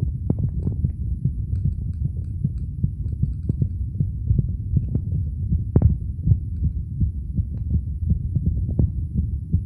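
A man's heartbeat picked up by a phone microphone pressed against the chest: a run of beats over a steady low hum, with one sharper click about six seconds in.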